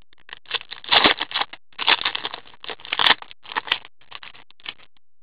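Foil wrapper of a hockey card pack being torn open and crinkled in the hands: an irregular run of crackles and rustles.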